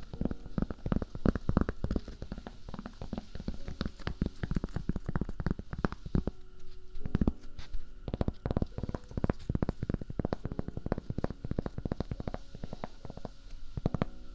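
Close-miked wet mouth sounds: rapid, irregular clicking and smacking, many per second.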